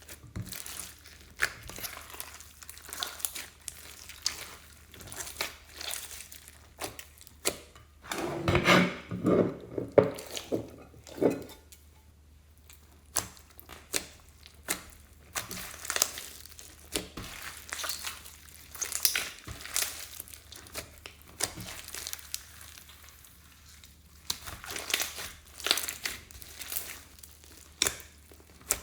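Slime mixed with floam beads being squeezed and kneaded by hand, giving irregular crackling and popping clicks. A louder stretch of squishing and crunching comes about eight to eleven seconds in.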